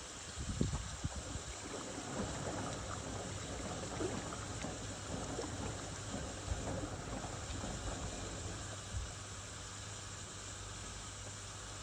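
Whirlpool FSCR 10425 washing machine mid-wash: water and laundry sloshing and swishing in the turning drum over a steady low motor hum. The sloshing dies down about nine seconds in, leaving the hum and a soft hiss.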